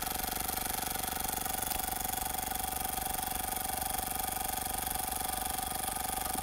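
Small brass M88 toy steam engine running steadily, its flywheel and linkage clicking in a fast, even rhythm.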